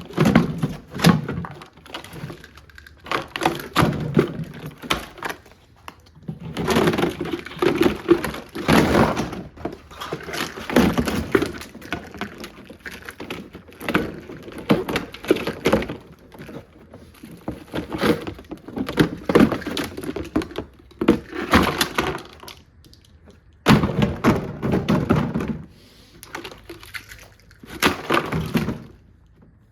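Plastic parts of a Kuppet portable washing machine being smashed and broken apart: repeated thunks, cracks and clatter in bursts of a second or two, with short pauses between.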